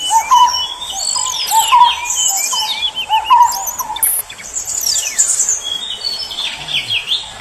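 Several songbirds singing and calling together: high twittering, whistled chirps and sliding notes throughout, with a lower short note repeated steadily through the first half that stops about halfway.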